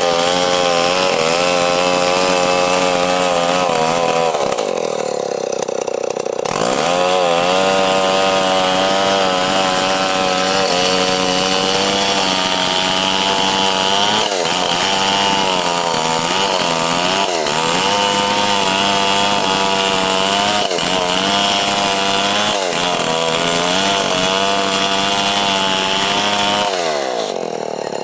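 Stihl 070 two-stroke chainsaw running at high revs, cutting lengthwise through a log. The engine note sags briefly several times under load. It drops to a lower speed for about two seconds, about five seconds in, and again near the end.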